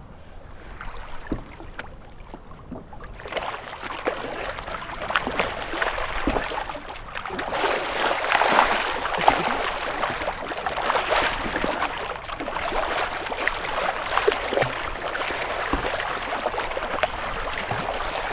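Water sloshing and splashing around a kayak and against a camera held at the waterline, with many small crackling splashes. It starts fairly quiet and grows louder and denser about three seconds in.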